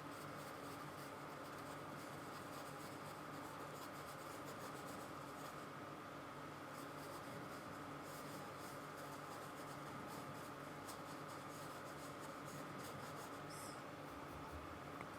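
Faint dry scratching of a paintbrush working acrylic paint onto canvas in many short, repeated strokes.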